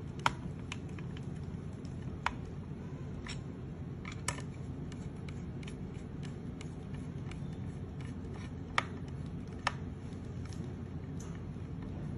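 Small screwdriver working a screw out of a plastic robot figure's leg: light scattered ticks of the driver tip and plastic parts, with a handful of sharper clicks, over steady low background noise.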